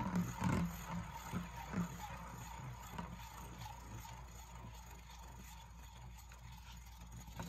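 Beyblade spinning in a clear plastic Zero G stadium: a whirr with light irregular clicks and rattles of the top against the tilting plastic bowl, fading away steadily as the top loses speed.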